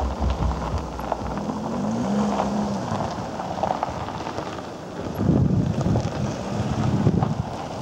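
Wind rumbling and buffeting on the microphone, strongest in the second half. A low hum rises and falls in pitch during the first few seconds.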